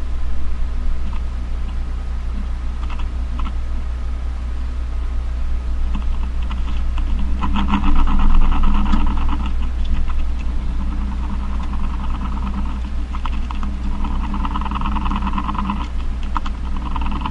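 A male spider's courtship drumming, signalling to a female: bouts of rapid ticking buzz, like fast typing, with the longest bouts about seven and fourteen seconds in and scattered single ticks between. A steady low hum runs underneath.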